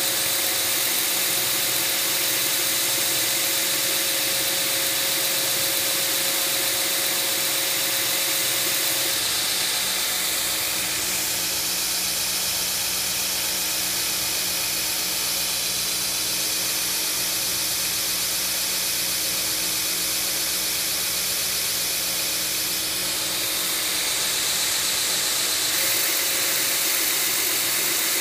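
A 2x72 belt grinder with a ceramic belt on a 4-inch wheel runs steadily while a steel straight-razor blank is hollow-ground against it, a loud high hiss with a steady ringing tone. About nine seconds in the tone changes as the grinding pauses and the belt runs on, and near the end it returns as grinding resumes.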